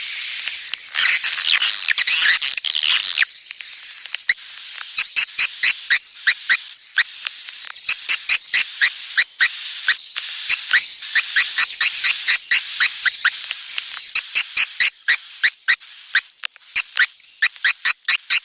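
Swiftlet calls, the kind played as a swiftlet-house lure or mating call. Dense high twittering for about the first three seconds, then short high chirps at one steady pitch mixed with sharp clicks, repeating about twice a second.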